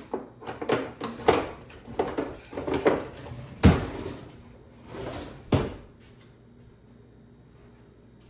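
A spoon and dishes being handled: a run of separate knocks and clinks, the sharpest about three and a half seconds in, dying away after about six seconds.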